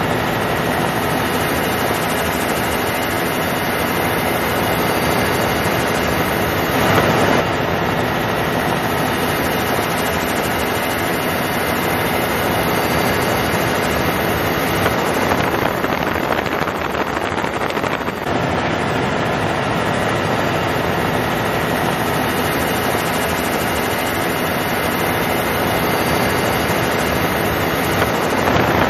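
Helicopter's engine and rotor running steadily in flight, heard from on board as a loud, even din with a few brief swells.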